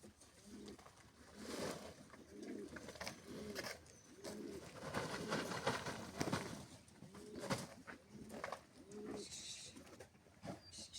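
A pigeon cooing in a repeated series of low, rolling coos, with scattered short clicks and scrapes alongside.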